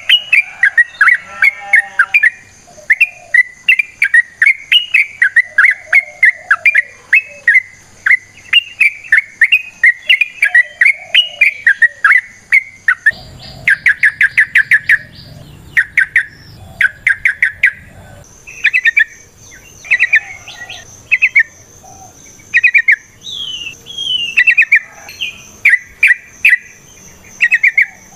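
Yellow-vented bulbul (trucukan) singing a long, fast run of short chattering notes, several a second; about halfway through the song breaks into shorter separated phrases over a low rumble. A steady thin high whine sits behind much of it.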